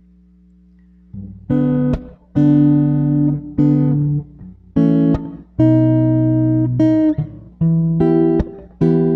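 Acoustic guitar strumming slow chords, each let ring, a new one roughly every second, starting about a second in after a faint hum. Close-miked through a BM-800 condenser microphone.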